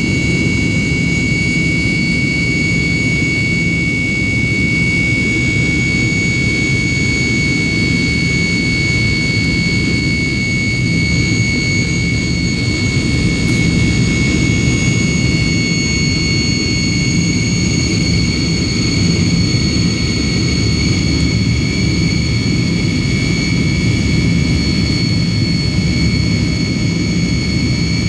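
Tupolev Tu-154M's rear-mounted Soloviev D-30KU-154 turbofan engines at takeoff thrust, heard from inside the cabin beside the engine. A steady loud roar with several high, steady whining tones above it as the airliner accelerates down the runway and lifts off.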